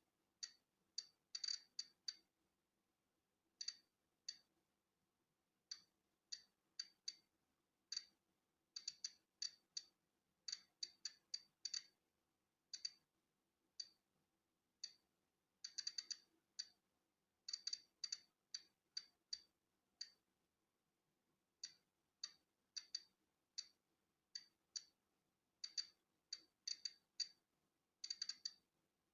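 Polon EKO-C digital Geiger counter clicking at random intervals as it counts natural background radiation. Short, sharp ticks, sometimes several in quick succession, with gaps of a second or more between others.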